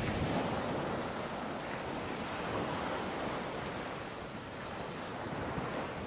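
Steady wash of sea waves and surf, with some wind, an even rushing noise without breaks.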